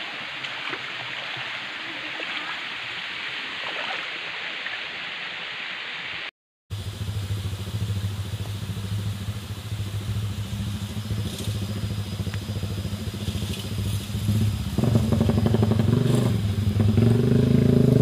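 Shallow stream water rushing over a dirt track; after a sudden break, an engine running and revving up, growing louder and rising in pitch over the last few seconds.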